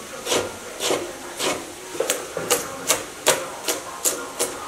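Cleaver chopping pickled mustard greens and then pickled chili peppers on a wooden cutting board: steady chops at about two to three a second, duller at first and crisper from about halfway on.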